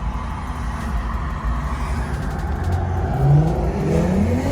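Car engine and road noise from inside the moving car, with the engine revving up as it accelerates in the last second or so.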